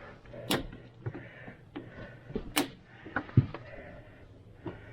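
Several sharp knocks and clunks of going in through a house's front door, with a low thud about three and a half seconds in.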